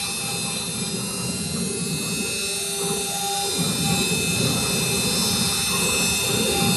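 4-axis CNC router milling iroko wood: a steady high spindle whine over a shifting rumble of cutting, with the axis motors' pitch gliding up and down as the machine moves.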